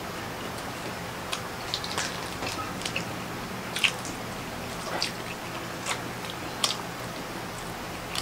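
Close-up eating sounds: irregular crisp clicks and crackles of grilled shrimp shells being peeled by hand, with chewing, over a steady low background hum.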